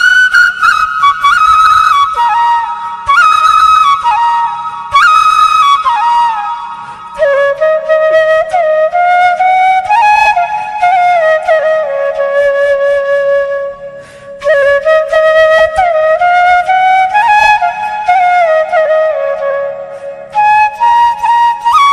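Flute music: a single bamboo-flute-like melody with sliding, ornamented notes played in phrases, the pitch dropping in the middle phrases and rising again near the end.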